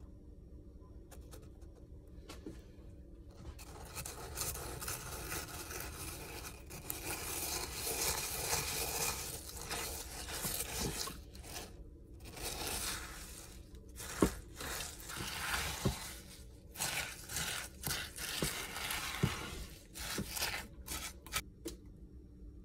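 A utensil stirring and scraping melted chocolate and chopped nuts around a pot in uneven strokes, with a few sharp knocks against the pot from about 14 s on.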